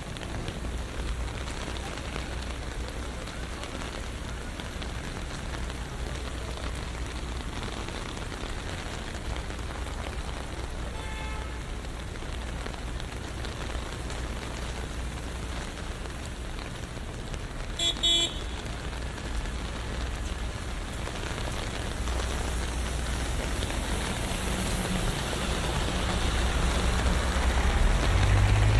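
Steady rain pattering on an umbrella over city street traffic. A car horn toots briefly a little past halfway through, and the low rumble of a vehicle grows louder near the end.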